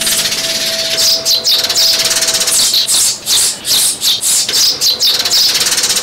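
A flock of Eurasian tree sparrows chirping and chattering without a break: dense, high, rattling chirps repeated several times a second. It is an adult-sparrow call recording of the kind played as a trapping lure.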